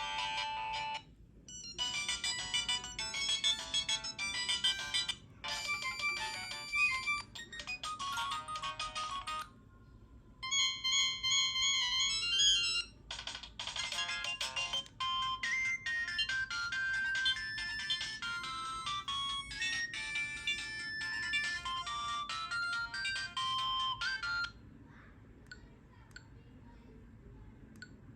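LG-F7100 mobile phone ringtones played one after another: short electronic melodies, each giving way to the next after a few seconds with brief gaps between, stopping a few seconds before the end.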